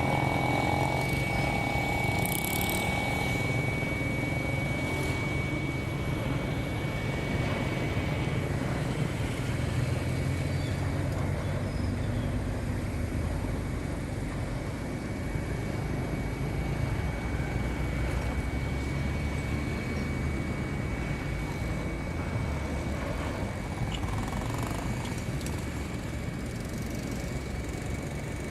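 Diesel freight locomotive engine running steadily with a deep drone. A thin high whine sits over it for the first several seconds.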